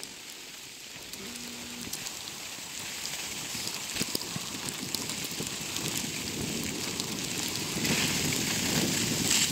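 Skis or a snowboard sliding and scraping over snow while descending, a steady rushing hiss that grows louder as speed builds.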